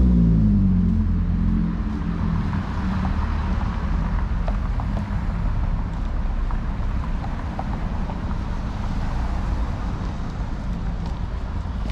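Street traffic: a motor vehicle's engine passing close by, fading within about two seconds, followed by a steady low rumble of road traffic.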